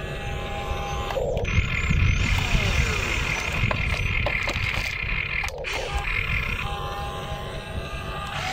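Electric motors of an RC excavator whining as the arm swings, lifts and dumps, the whine starting, stopping and changing pitch with each movement. Dirt and rocks clatter into the RC dump truck's bed about four seconds in.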